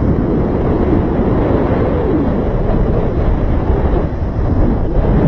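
Loud, steady wind buffeting the microphone, the rush of air during a paragliding flight.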